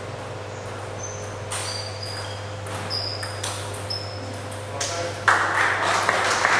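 Sharp, irregular clicks of a table tennis ball on bats and table, with a few brief high squeaks of shoes on the court floor. About five seconds in, a burst of applause and crowd noise starts up.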